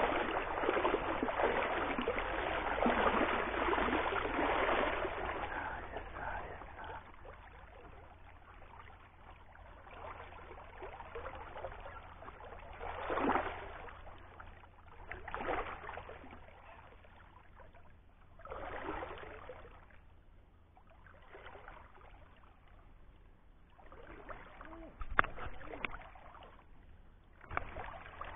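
Water splashing as a hooked lampam fights on a fly line: continuous heavy splashing for the first few seconds, then quieter running water broken by several separate splashes.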